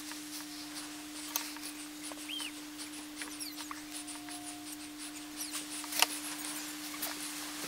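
Hot tip of an electric wood-burning pen crackling faintly against mahogany as it burns in letters: scattered tiny clicks and short squeaks over a steady electrical hum, with one sharper click about six seconds in.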